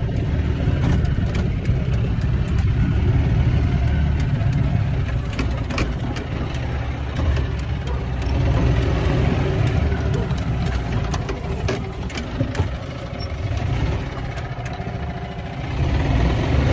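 Golf cart riding across a grassy yard: a continuous low rumble that swells and eases as it goes.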